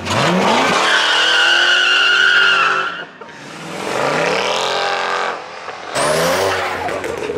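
Cars launching hard out of a car meet one after another. The first revs up with a steady tyre squeal for about two seconds, a second car accelerates past with rising revs, and a third launches about six seconds in.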